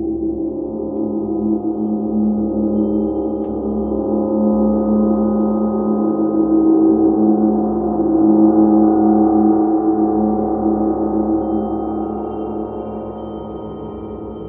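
Large gongs played with soft felt mallets: a continuous, layered drone that swells to a peak about eight seconds in and then slowly fades.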